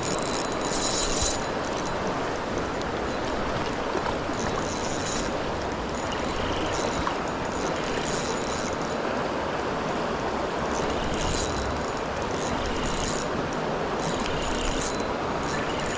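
River water rushing and flowing steadily over a shallow run. Brief high-pitched sounds come and go over it several times.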